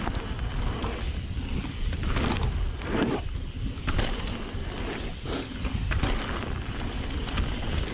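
Mountain bike riding down a rough trail: a steady rumble of wind and tyre noise, with frequent rattling clicks and knocks from the bike over bumps and a few louder noisy surges.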